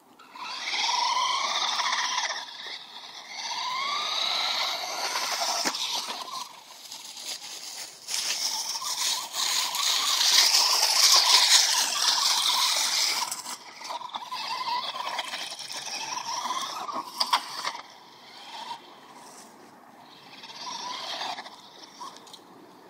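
Small radio-controlled truck's motor whining in several bursts, its pitch rising and falling with the throttle as it races over pavement, loudest about ten seconds in.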